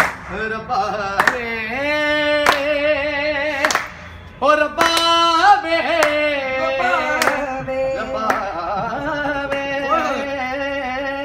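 A man singing a Punjabi song unaccompanied, holding long, wavering notes with ornamented turns. A sharp clap falls roughly once a second, keeping time.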